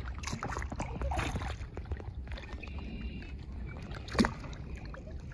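Water lapping and splashing against a kayak hull, with a low wind rumble on the microphone and scattered small clicks. A single sharp knock a little after four seconds is the loudest sound.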